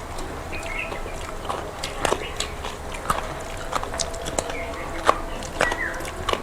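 Close-up eating sounds: chewing with many short, wet mouth clicks and smacks, as prawn and rice are eaten by hand.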